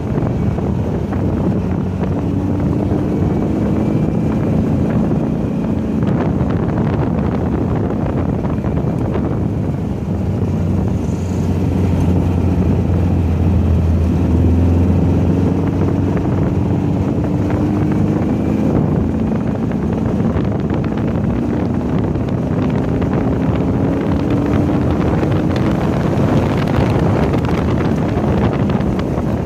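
Volkswagen race car's engine heard onboard while lapping a track, its note climbing several times as the car accelerates, under heavy wind noise buffeting the microphone.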